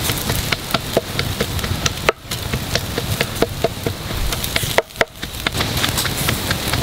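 Fat dripping from whole ducks roasting over a pit of glowing embers, sizzling on the coals as a steady hiss full of irregular crackles and pops. The sound drops away briefly twice, about two and five seconds in.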